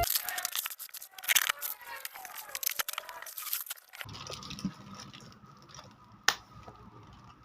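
Plastic packaging being torn open and crinkled by hand: a dense run of crackles and rips for about four seconds, then quieter handling with a single sharp click.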